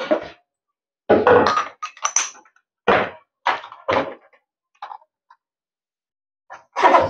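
A series of knocks, thuds and clatters as a bulb-test board with a clear glass bulb in its holder is set down and handled on a wooden table, with its cord and plug being handled.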